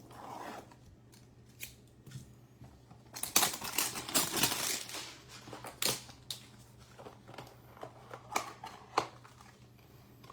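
Cardboard hanger box of Topps Heritage baseball cards being torn open, with a loud spell of tearing and rustling about three seconds in. Scattered clicks and taps follow as the cards are pulled out and handled.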